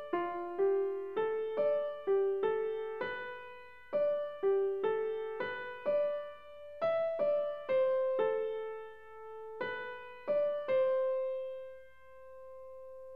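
Background music: a slow, gentle piano melody of single notes, about two a second with short pauses, settling on one long held note near the end.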